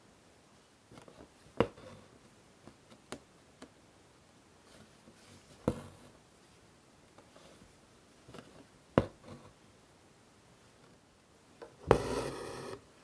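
Embroidery needle going through fabric held taut in a wooden hoop: three sharp pops several seconds apart, with faint ticks between them. Near the end the thread is drawn through the fabric with a short, loud rasping swish.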